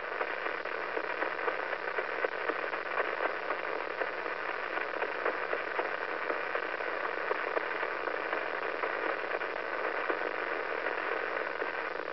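Radio-telescope signal of the pulsar PSR B0950+08 played as sound: a steady hiss of static with faint clicks pulsing about four times a second, one for each 0.253-second turn of the neutron star. A faint low hum runs underneath.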